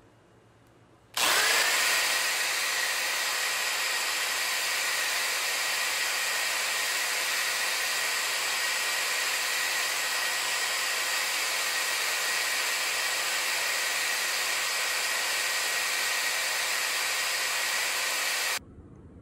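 A small electric motor, as in a power tool, starts about a second in, spins up almost at once and runs at a steady speed with a constant whine over a hiss, then cuts off suddenly near the end.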